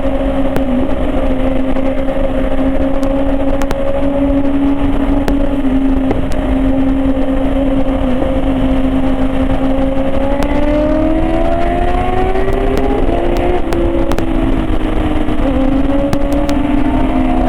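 KTM 390 Adventure's single-cylinder engine running steadily at cruising speed, then rising in pitch about ten seconds in as the bike accelerates, with a short dip and another rise near the end. Wind rushes across the microphone throughout.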